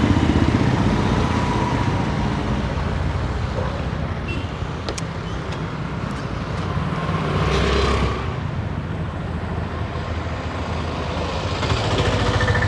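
Road traffic with motorbike and scooter engines running and passing, swelling briefly about eight seconds in as one passes closer.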